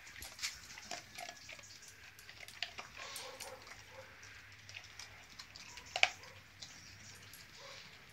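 Beagle nosing about on stone paving: quiet scattered clicks and short snuffling noises, a few faint short whines around the middle, and one sharper click about six seconds in.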